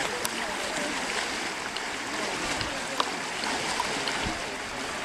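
Steady rush of running water, with faint distant voices underneath and a couple of sharp clicks.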